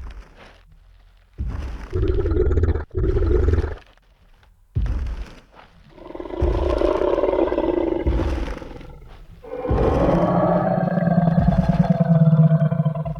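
Tyrannosaurus rex roar sound effect: two short growls, then two long roars, the last with a deep rumbling growl under it. A heavy stomp lands about five seconds in.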